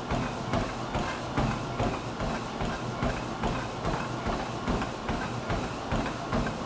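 Running footfalls on a NordicTrack Commercial 1750 treadmill deck at 6 mph: a steady beat of thuds, about three a second, from a heavy runner's feet landing on the cushioned belt, with a low steady hum underneath.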